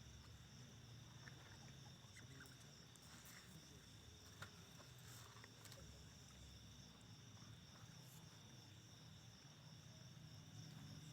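Near silence, with a faint, steady insect chorus: continuous high-pitched chirring, most likely crickets, and a few faint ticks.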